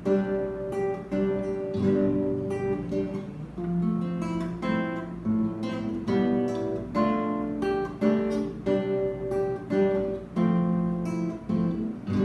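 Acoustic guitar strumming chords in a steady rhythm, the instrumental introduction of a worship song.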